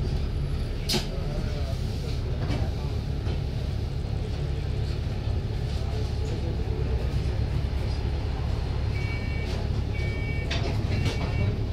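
Interior of an Enviro 400 double-decker bus: the engine and running gear give a steady low rumble. About nine seconds in, a short electronic beep starts repeating about once a second, the warning tone of the bus's entrance doors, with a couple of clicks from the door gear.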